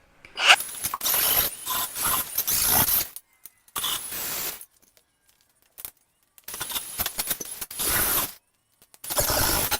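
MIG welder laying short weld beads, crackling in bursts of one to three seconds that start and stop abruptly with silent gaps between.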